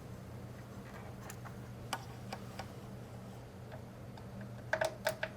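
Scattered light clicks and taps as the Audyssey calibration microphone's plug is fitted into the front microphone jack of a Denon AVR-X4700H receiver, with a quick cluster of clicks near the end. A low steady hum runs underneath.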